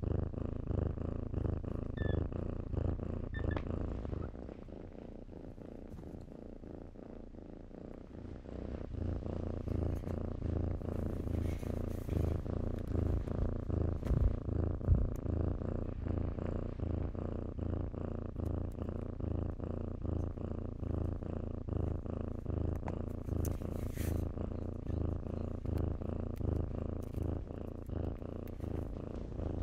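Kitten purring steadily close up, a low pulsing rumble. About four seconds in the purr goes quieter for a few seconds, then picks up again, with a few faint brief clicks.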